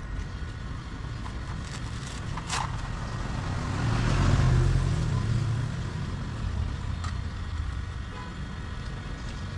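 A road vehicle passing by: a low rumble that swells about four seconds in and then fades, over a steady background of traffic. A single light click sounds a little before the swell.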